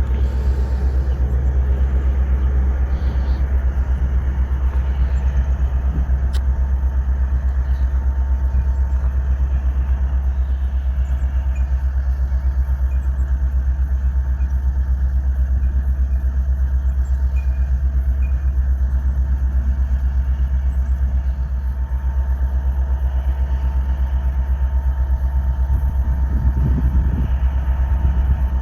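Long loaded coal train rolling past: a steady low rumble of wheels on rail that holds even and unbroken throughout.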